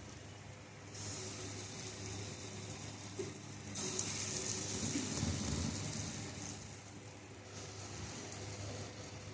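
Urad-dal fritters sizzling as they deep-fry in hot oil in a kadai, a steady hiss that grows louder about four seconds in and eases off a few seconds later.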